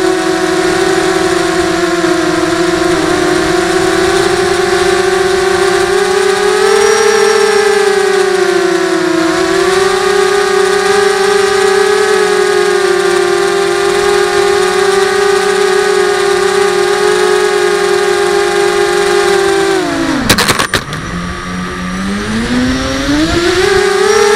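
Electric motors and propellers of an FPV drone, heard through its onboard camera, giving a loud steady whine that wavers slightly in pitch. About twenty seconds in the throttle drops sharply with a few quick clicks, then the motors spin back up to a steady whine over the next few seconds.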